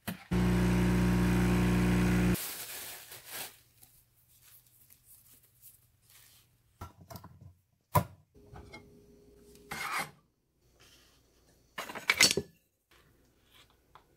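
A Nespresso coffee machine's pump buzzing loudly for about two seconds at the start. Later a hand can opener bites into a tin can with a sharp click and grinds around the rim in short bouts of cranking.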